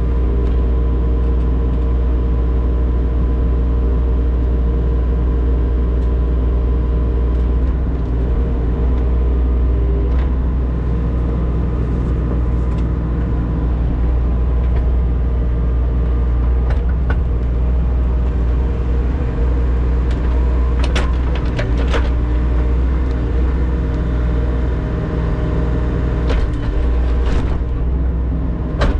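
Diesel engine of a compact digging machine running steadily under load while it digs out frozen ground. A few sharp knocks of the bucket against the ground come in the last third.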